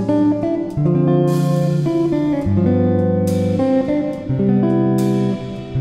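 Background music led by a plucked guitar, with held notes changing every second or so and a sharp accent about every two seconds.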